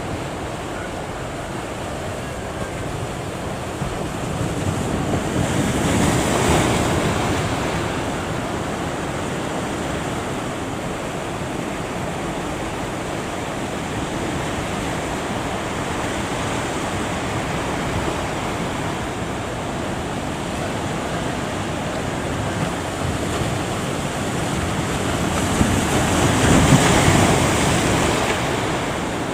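Ocean surf: a steady wash of waves, with a bigger wave breaking about six seconds in and another near the end.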